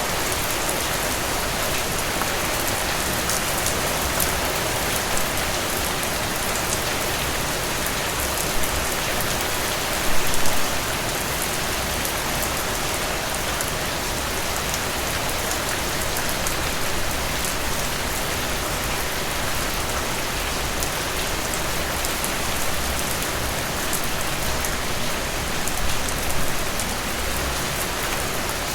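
Steady rain falling, an even hiss with sharp drops ticking through it. It swells briefly about ten seconds in and again near the end.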